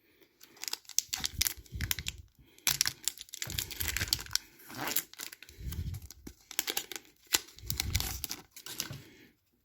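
A Topps 2020 Series 1 baseball card pack's wrapper being torn open and crinkled by hand, with irregular crackling rustles and handling of the cards inside.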